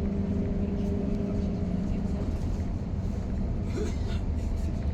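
Bus interior while riding: a steady low engine and road rumble, with an engine hum that fades out about halfway through and a few light rattles and clicks near the end.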